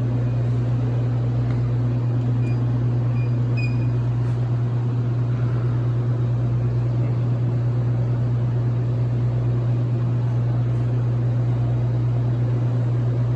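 Vending machine running with a steady low electrical hum, with a few faint short beeps in the first few seconds.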